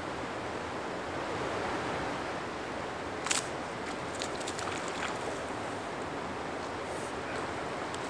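Steady rushing of a river's current, with one short sharp click about three seconds in.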